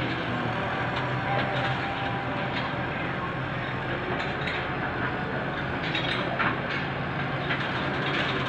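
An engine running steadily under a bed of outdoor noise, with scattered knocks and metallic clatter from the work, one louder knock about six seconds in.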